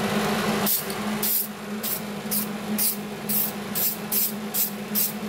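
Krylon aerosol spray-paint can sprayed in short hissing bursts, about two a second, onto freshly welded steel plate and square tube. The bursts start just under a second in.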